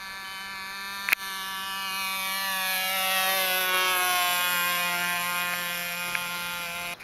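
Radio-controlled model aeroplane flying past close by: the whine of its motor and propeller swells, is loudest midway, then slides steadily down in pitch as the plane passes and climbs away.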